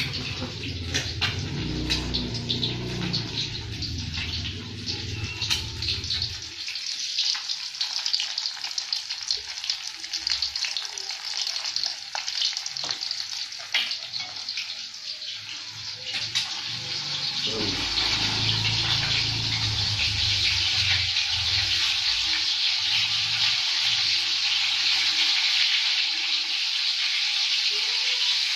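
An egg frying in hot oil in a wok, sizzling steadily and getting louder a little past halfway, with a few sharp clicks of the wooden spatula against the pan. There is a low rumble in the first few seconds.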